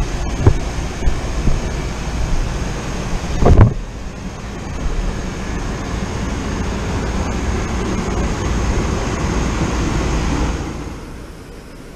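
Wind buffeting an outdoor microphone, with a loud thump about three and a half seconds in. A steady rush follows and drops away near the end.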